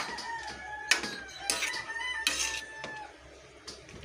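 A rooster crows in long drawn-out calls while a spatula scrapes and knocks against a wok several times as chicken and vegetables are stirred.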